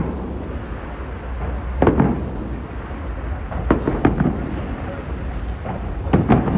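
Aerial fireworks bursting: a boom about two seconds in, a quick pair near four seconds, and another cluster around six seconds, each with a short echoing tail, over a steady low background rumble.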